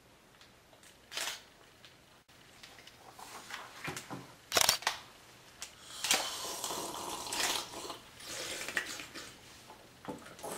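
A man drinking from a glass, then harsh, breathy gasps and spluttering as he reacts to the drink.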